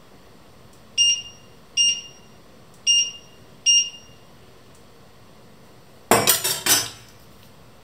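Four short high beeps, about a second apart, from an electric hob's touch controls as the settings are tapped. Near the end comes a brief metallic clatter of a stainless slotted spoon dropped into a steel saucepan.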